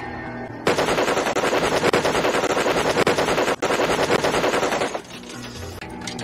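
A tank-mounted heavy machine gun fires a long burst of rapid automatic fire. The burst starts under a second in, has a couple of brief breaks, and lasts about four seconds.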